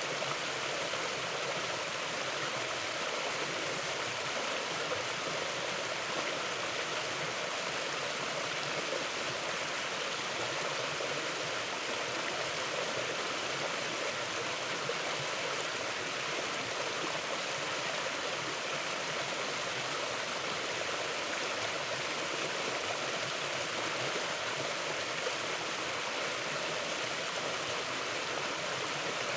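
A river flowing over rocks: a steady, even rush of water.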